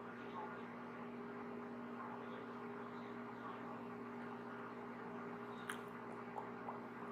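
Soft brushing on a microphone: an even swishing hiss over a steady electrical hum, with a few small clicks near the end.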